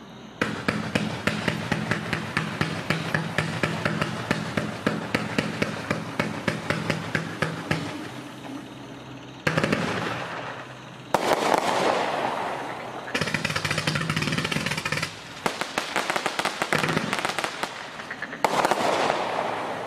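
Miracle Fireworks 'High Energy', a 136-shot Z-shape finale cake, firing. First comes a rapid run of tube shots, about four a second. Louder surges of dense popping follow at about ten, eleven and eighteen seconds in.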